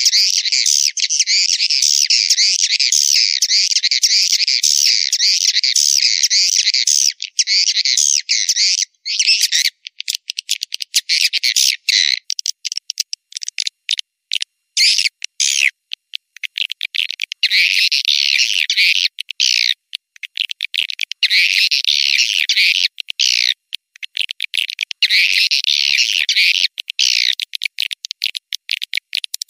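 Swiftlet lure call track (suara panggil walet), played to draw swiftlets into a nesting house: a dense, high chittering twitter of many swiftlets. It runs unbroken for about the first twelve seconds, then comes in bursts a couple of seconds long with short gaps, over a fast scatter of sharp clicks.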